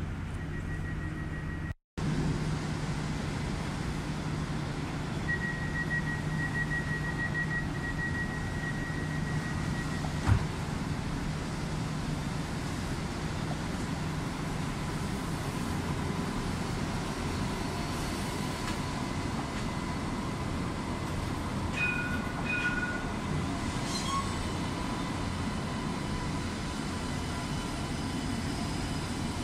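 Alstom Citadis light rail trams with a steady electrical hum and a high pulsing tone for about five seconds. Then a tram glides in alongside with a steady whine, and a short two-note chime sounds near the end.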